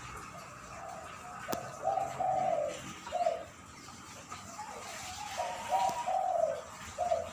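A dove kept as a decoy (pikat) bird cooing: a phrase of low, hollow coo notes, then a short pause and a second phrase of several coos.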